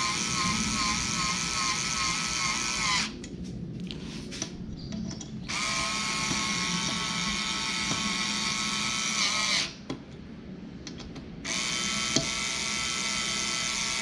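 A handheld power drill-driver runs in three long bursts of a few seconds each, with a steady whine, and stops briefly between them.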